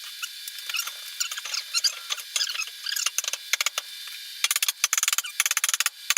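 Metal pieces being worked into their slots in an oak slab: high squeaks and scraping with scattered clicks, and a quick run of clicks and rattles about four and a half seconds in.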